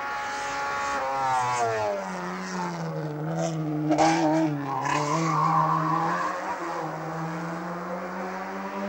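Racing hatchback's engine climbing a mountain hillclimb course. The revs drop about a second in as it slows for a hairpin, then the engine pulls through the bend and the note climbs again, with a brief tyre squeal in the middle.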